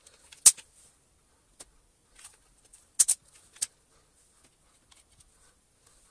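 Sharp plastic clicks as small wheels on their axles are pushed home into a Dyson DC07 vacuum cleaner's plastic base plate. One loud click comes about half a second in, then a quick double click and a third about three seconds in, with fainter handling clicks between.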